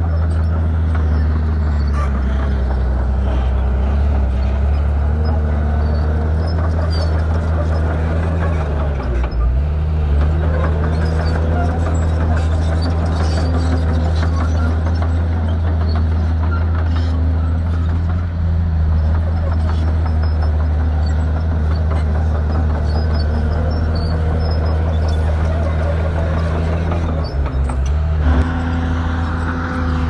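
Heavy diesel engine of earthmoving machinery running steadily at a constant pitch. Its pitch dips briefly about nine seconds in and again near the end, then recovers.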